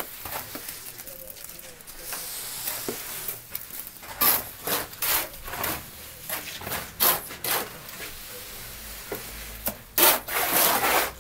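Hand plastering tools scraping and rubbing over fresh cement-lime rough plaster on a wall, in a series of uneven strokes that are loudest near the end.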